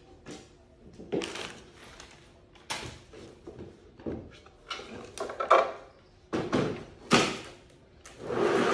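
Wooden bookshelf boards being handled: a series of knocks and short scraping slides of wood on wood, with a longer, louder scrape near the end.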